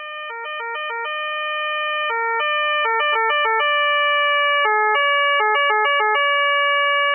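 Austrian police two-tone electronic siren switching between a low and a high note about a fourth apart, in an uneven pattern of quick short low notes and longer held high notes. It grows steadily louder over the first few seconds and cuts off abruptly at the end.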